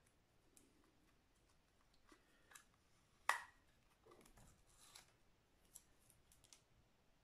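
Faint clicks and light plastic handling noise from a DJI Mini 2 drone being worked at and turned over in the hands, with one sharper plastic click about three seconds in.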